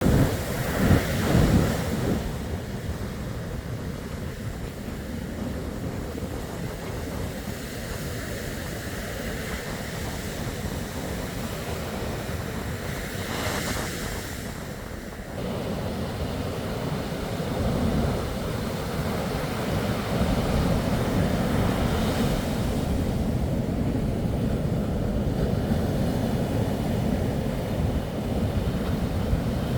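Sea waves washing onto the shore, swelling and easing, with wind rumbling on the microphone.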